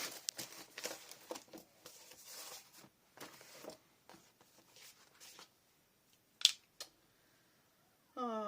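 Cardboard and paper being handled and laid down on a craft table: scattered rustling and crinkling, then a lull and one sharp click about six and a half seconds in.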